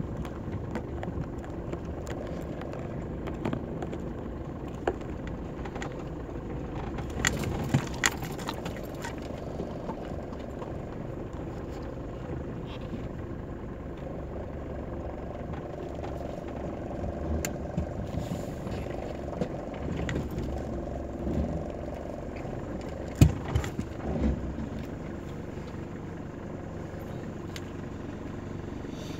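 Mitsubishi Pajero Mk2 running at low speed as it crawls down a rough, rocky dirt track, heard from inside the cabin. A few sharp knocks and rattles come as it goes over the bumps; the loudest are a little after twenty seconds in.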